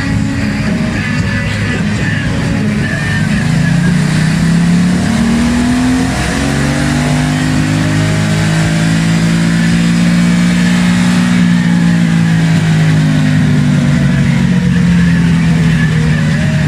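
Aprilia Caponord 1200's V-twin engine running under load on a dynamometer with the stock exhaust. Its pitch climbs, drops back about six seconds in, then climbs slowly and holds high.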